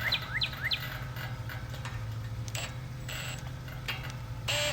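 A songbird singing a fast run of repeated chirps, about three a second, that stops about a second in. A steady low hum runs underneath, and faint clicks and scrapes follow, with a brief louder scrape near the end.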